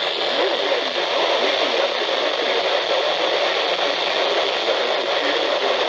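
Steady hiss of radio static from a weakly received broadcast signal.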